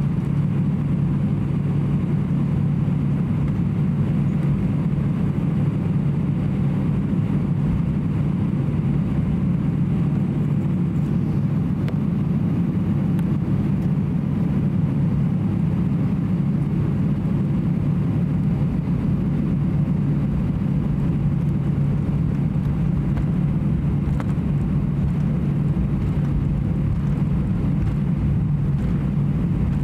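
Steady cabin drone inside an Airbus A320-214 from its engines and airflow. It is an even, low hum that holds level without any rise or fall.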